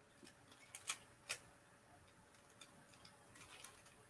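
Faint plastic clicks of a Rubik's cube being turned by hand: a few sharp clacks in the first second and a half, the loudest about a second in, then softer scattered ticks.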